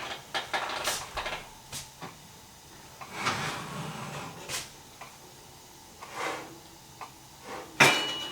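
Kitchen handling sounds as a roast chicken is taken out of the oven: oven-door and rack clicks and scrapes, then one sharp clank near the end with a brief metallic ring as the pan is set down.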